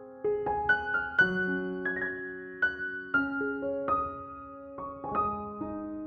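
Gentle background piano music: a slow melody of struck single notes and chords, each note ringing on.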